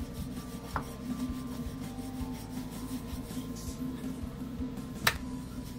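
Wooden rolling pin rolling out a sheet of maida dough on a floured wooden board: low rubbing with soft knocks, and one sharp click about five seconds in. A steady low hum runs underneath.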